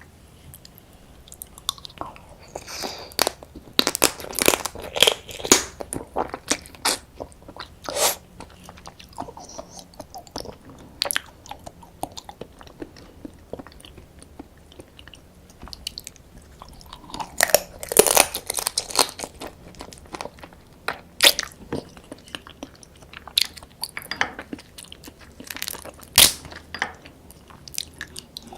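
Close-miked eating of soy sauce marinated raw crab (ganjang gejang): irregular crunching and crackling bites with wet chewing, in clusters of sharp cracks.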